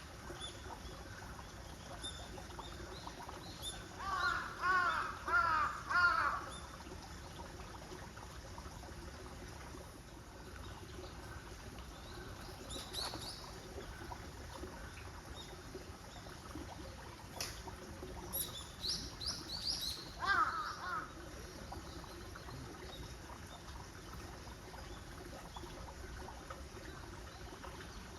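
A crow cawing in a run of several calls about four seconds in, and again briefly around twenty seconds. Between them come a few thinner, higher-pitched calls from a smaller bird, over a faint outdoor background.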